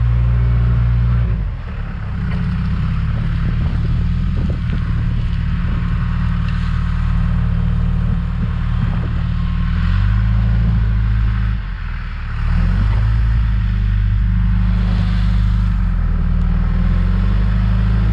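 John Deere 310G backhoe's diesel engine running under load while grading. Its pitch shifts several times, with brief dips in level about one and a half seconds in and again about twelve seconds in.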